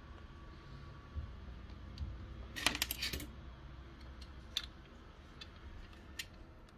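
Small hard plastic parts being handled on a desk: a brief clatter of several sharp clicks about three seconds in, then a couple of single clicks.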